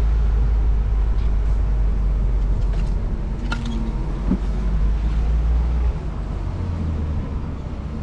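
Sixth-generation Ford Bronco crawling along a dirt trail, its engine and drivetrain making a steady low rumble that eases off about six seconds in, with a few light knocks around the middle.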